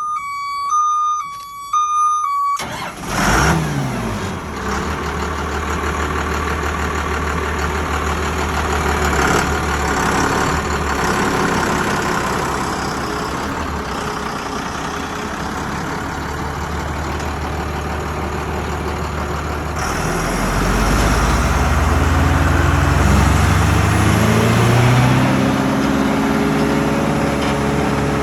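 A repeated electronic warning beep, then the diesel engine of a 2003 Morbark 950 tub grinder starts about two and a half seconds in and runs steadily. About twenty seconds in it revs up, its pitch rising over several seconds to a higher steady speed.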